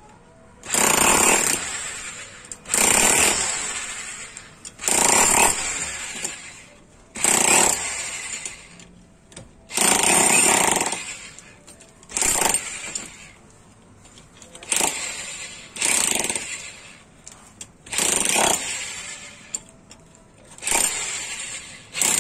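INGCO 1050-watt rotary hammer in hammer-only mode with a chisel bit, chipping out a groove in a concrete hollow-block wall for wiring. It runs in short bursts about every two seconds, each starting sharply and dying away.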